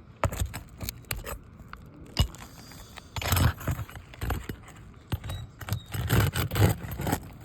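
Steel roof snake (shingle nail-removal bar) scraping and clinking against asphalt shingles and roofing nails as it is worked under a shingle, in a run of irregular sharp clicks and rough scrapes. The scraping is heaviest twice, about three seconds in and again near the end.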